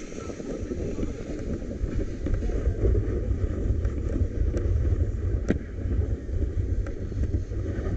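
Snowboard sliding and scraping over snow at speed, under a heavy rumble of wind buffeting the microphone. A few light ticks sound, the sharpest about five and a half seconds in.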